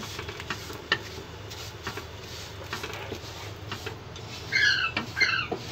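Spatula stirring and scraping vermicelli as it roasts in ghee in a nonstick kadhai: scattered light scrapes and taps over a steady low hum. Near the end come two short high-pitched chirps, the loudest sound.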